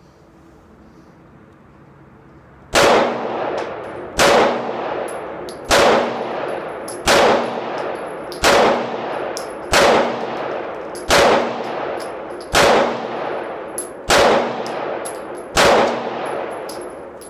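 SCCY CPX-2 9mm pistol firing ten shots at a slow, even pace, about one every second and a half, starting about three seconds in; each shot trails off in a ringing echo. It cycles every round without a stoppage on brass-cased Remington ammunition.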